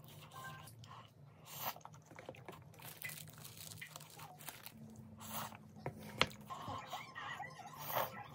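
A person eating close to the microphone: chewing and crunching food with irregular short crisp bites and mouth noises, and a noodle slurp near the end.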